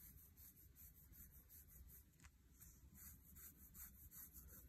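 Soft brush strokes sweeping loose gold foil off textured paper, a faint, quick swishing several strokes a second, as excess foil is brushed away from the gilded areas.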